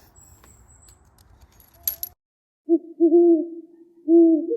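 Faint clicks and handling noise, then the sound cuts off suddenly. About half a second later a series of short, low, owl-like hooting calls begins, each note about half a second long, repeating.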